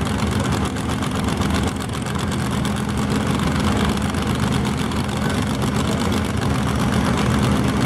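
A pull tractor's engine running at a steady speed with an even, pulsing note, not revving.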